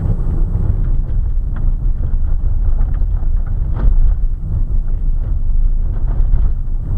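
Car driving downhill on a loose gravel road, heard from inside the cabin: a steady low rumble of tyres on gravel with scattered crackles of stones, one sharper crack a little under four seconds in.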